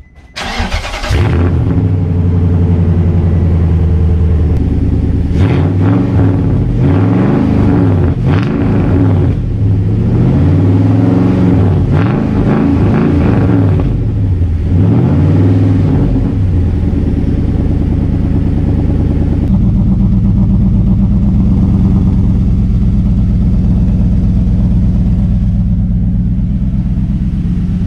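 Pickup truck engine starting up and running through a newly fitted budget aftermarket cat-back exhaust with new catalytic-converter mid-pipes, the exhaust note heard close to the tailpipe. It is revved up and down several times in the middle, then settles to a steady idle.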